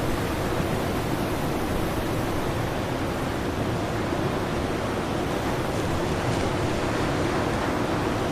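Strong blizzard wind blowing steadily, an even rushing noise.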